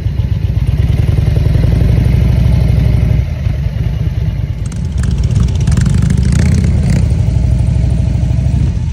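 Motorcycle engine running loud and low at crawling speed in stop-and-go traffic, easing off briefly about three seconds in and picking up again, with a harsher, rattling stretch of noise from about five to seven seconds in.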